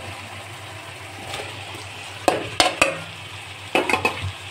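Spiced onion-tomato masala sizzling in a metal wok. Potato chunks are tipped in and a spoon knocks against the pan, giving two bursts of sharp clatters a little past the middle.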